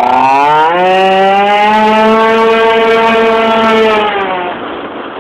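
Yamaha Jog RR scooter's two-stroke single-cylinder engine, fitted with a Hebo Manston kit, revving up over about a second, held high and steady for about three seconds, then dropping off; it starts climbing again near the end.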